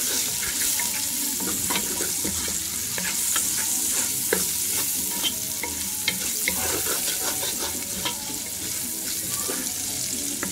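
Sliced red onions and ginger frying in hot oil in a pot: a steady high sizzle with many small crackles, and a wooden spoon scraping and stirring through them.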